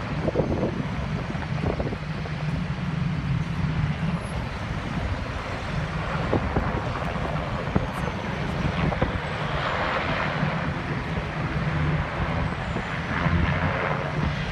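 Bell 206 helicopter heard at a distance, its two-blade main rotor chopping steadily along with the turbine's hum.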